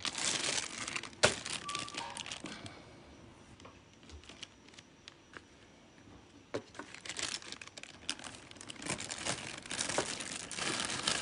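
Handling noise from a hand rubbing and tapping on the phone near its microphone: rustling with a sharp click about a second in, a quieter stretch in the middle, then more rustling and clicks near the end.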